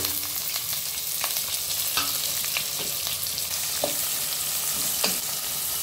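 Sliced onions and green chillies sizzling in hot oil and ghee in a pot, stirred with a wooden spatula that taps against the pot now and then.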